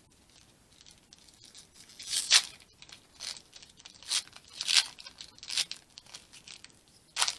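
Foil booster-pack wrapper being torn open and crinkled by hand, in about half a dozen short, sharp rasps.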